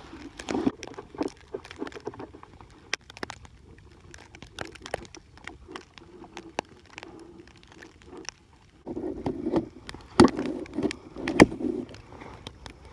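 Knife blade drawn over a leather strop in light, scattered scraping strokes, then from about nine seconds in the sharpened knife shaving wood off a stick in quick strokes, with two loud sharp cracks as the blade bites.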